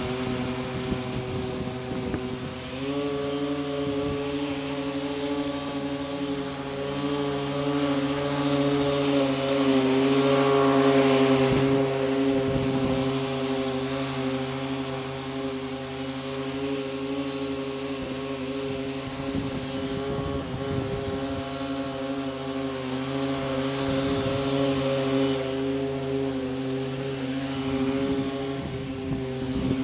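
Petrol lawn mower engine running steadily at cutting speed, its pitch stepping up slightly about three seconds in.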